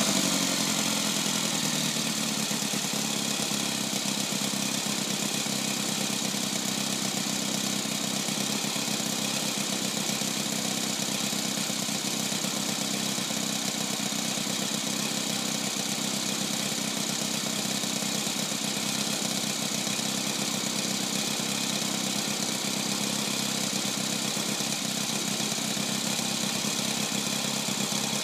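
Saito 200 twin-cylinder model aircraft engine idling steadily on its first run, easing down over the first couple of seconds and then holding an even idle.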